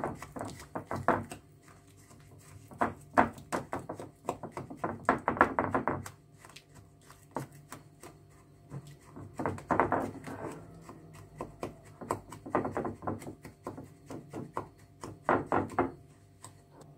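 Wooden spoon stirring a wet paste of ground poppy seeds and oil in a glass bowl, clicking and scraping against the glass in quick runs with short pauses between.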